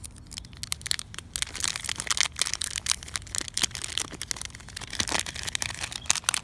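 Unboxing packaging being crinkled and crushed: a dense, irregular run of crackles and snaps.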